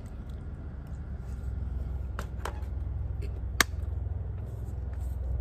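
A metal fork clicking a few times against a foil packet and its tray, the sharpest click about three and a half seconds in. Under it runs a steady low rumble.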